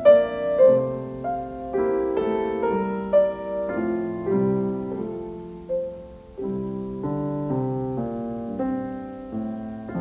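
Background piano music: a gentle melody over chords.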